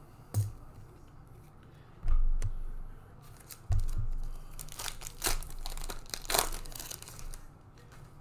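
A few dull thumps, then a foil trading-card pack being torn open, its wrapper crinkling and crackling for about two seconds.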